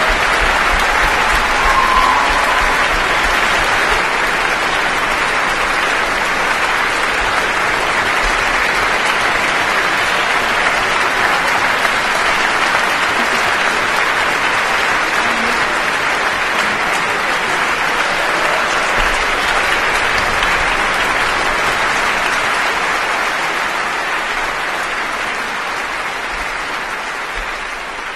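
Large audience applauding in a concert hall, a steady dense clapping that fades out over the last few seconds.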